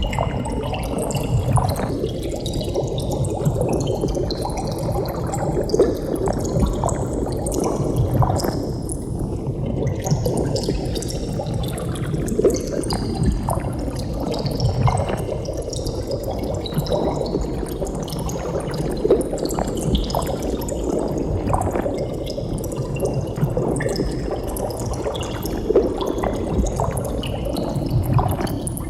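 Water bubbling continuously, a dense, steady stream of many small bubble pops and blips.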